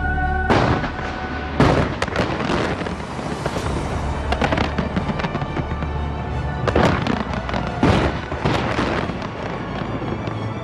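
Large fireworks bursting in quick succession, sharp bangs with crackling between them, the loudest a little over a second in, with further clusters around the middle and in the second half. Music plays underneath.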